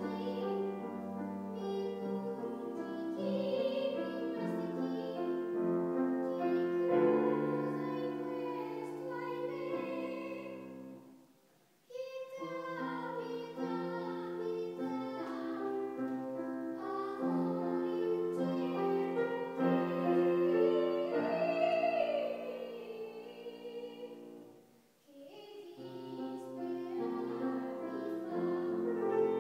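A woman singing in operatic classical style with vibrato, accompanied by a grand piano. The music falls quiet briefly twice between phrases.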